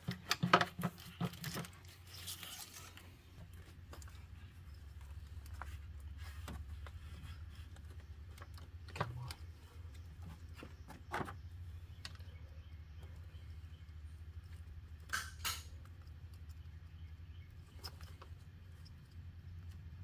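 Scattered clicks and knocks of hands working plastic wiring-harness connectors and clips in a car's engine bay, busiest in the first couple of seconds, over a steady low hum.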